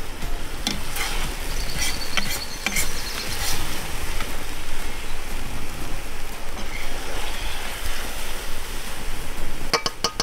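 Meat sizzling in a hot cauldron, a steady hiss, with a slotted metal skimmer clinking and scraping against the cauldron and a stainless steel bowl a few times, several clinks coming quickly near the end.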